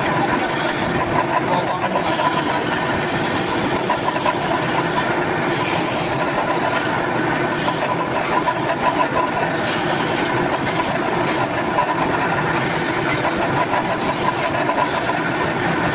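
A motor-driven workshop machine running steadily, with a continuous mechanical whirr and rattle.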